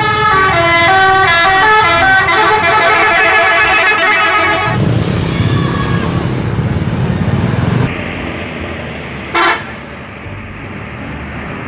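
Bus's musical 'telolet' horn playing a quick tune of changing notes, then the bus's engine running as it passes. A single short horn blast comes about nine and a half seconds in.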